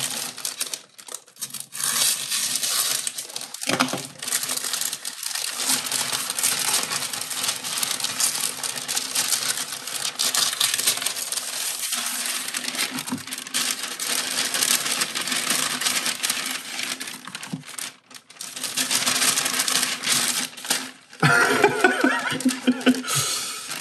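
A white paper envelope being pried and torn open and its contents slid out: continuous paper crinkling and rustling, with a few short pauses.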